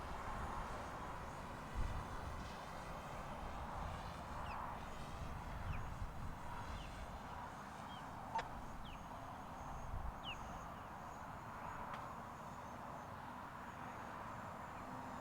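Steady outdoor background noise with a few short, high chirps from birds scattered through the middle, and one sharp click about eight seconds in.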